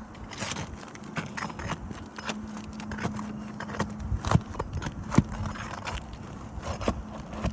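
Scattered clicks, knocks and scrapes of a roofing pry tool working under brittle asphalt shingles to pop the nails loose.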